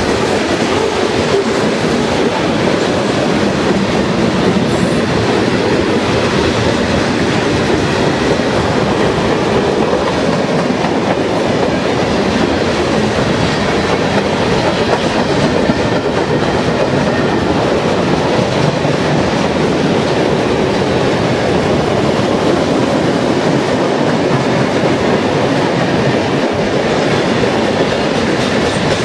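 Mixed freight train of covered hoppers, boxcars and tank cars rolling past close by: a steady, loud clatter of steel wheels on the rails with a continuous clickety-clack.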